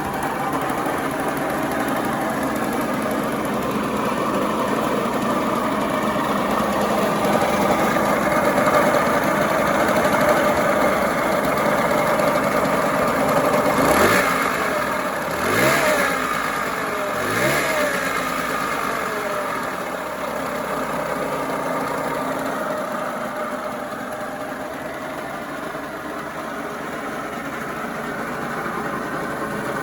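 Suzuki Street Magic 50's small two-stroke engine idling with an abnormal noise that the owner puts down to a worn crankshaft main bearing or big-end bearing. It is revved briefly three times about halfway through, then settles back to idle.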